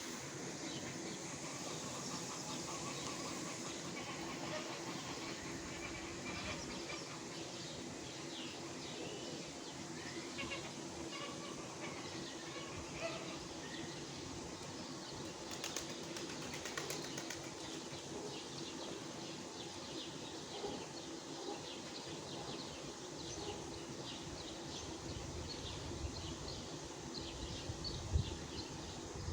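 Outdoor ambience: many small birds chirping, with a steady low hum underneath.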